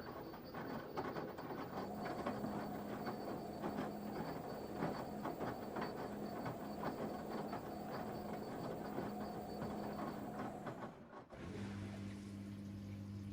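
Washing machine drum tumbling a wash load, with dense irregular clacking over a steady motor whine. About eleven seconds in the tumbling stops and a steady mains hum starts with running water.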